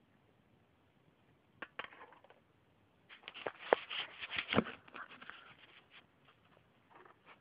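Dry twigs and leaf litter crunching and crackling: a single click about a second and a half in, then a dense run of sharp crunches in the middle, and a few faint ones near the end.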